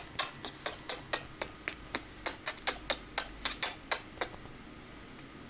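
Small Chihuahua licking a man's face close to the microphone: quick wet smacking licks, about four a second, stopping about four seconds in.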